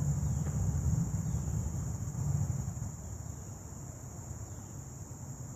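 Steady high-pitched insect chorus, an unbroken buzz, with a low rumble that is loudest over the first three seconds and then eases.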